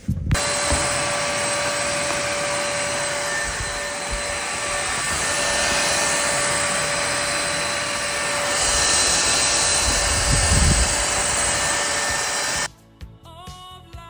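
Hetty Quick cordless stick vacuum running: a steady rush of suction air with a high, constant motor whine, with a few knocks and a spell of low rumbling about ten seconds in as the head works along the floor. It starts suddenly and cuts off suddenly near the end.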